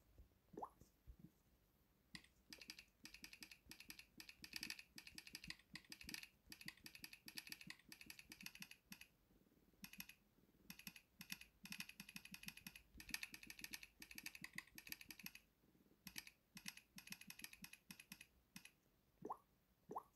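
Samsung Galaxy on-screen keyboard key sounds in the Retro system-sound theme: quick runs of short electronic clicks, one per key tap, with brief pauses between bursts of typing. A short rising blip about a second in, and two more near the end.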